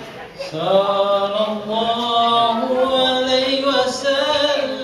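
Chanted singing with long, slowly sliding held notes, coming in about half a second in.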